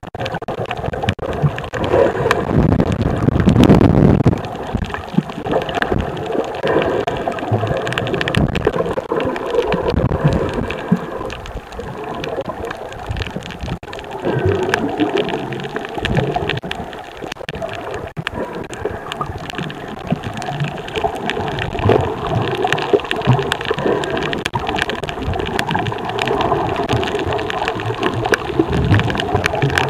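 Underwater sound picked up by a camera held below the sea surface: muffled rumbling and sloshing of water moving past the camera, with a constant crackle of fine clicks throughout. The rumble swells loudest about three seconds in.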